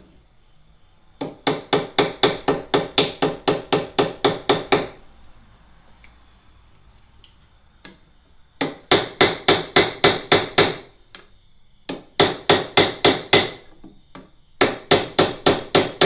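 Ball-peen hammer rapidly tapping the brass pins of a machete's wooden handle against an anvil to mushroom their heads, in four quick runs of about four to five strikes a second with short pauses between.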